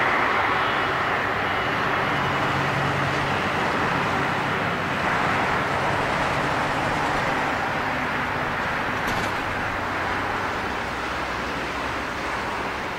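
Twin jet engines of a taxiing Airbus A330-200 airliner, a steady rushing noise with a faint whine that slowly fades.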